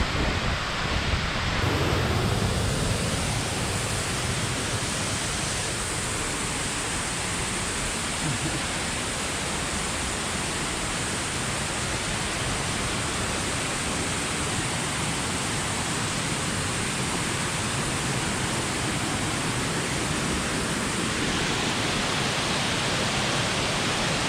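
Soco Falls pouring steadily, a dense, even rush of falling water with no break.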